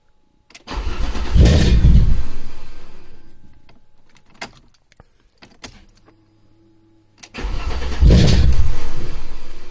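Alfa Romeo 2.5 V6 engine started twice: each time it cranks, catches and runs for a moment, then dies away and stalls. A couple of sharp clicks fall between the two attempts. The start-and-stall comes from intake runners not tightened to the cylinder head, letting air leak in.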